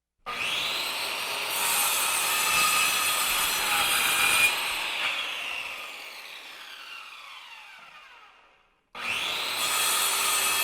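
Electric sander working on wood. The motor spins up and runs steadily for about four seconds, then winds down over several seconds as its pitch falls. Near the end it starts up again and runs.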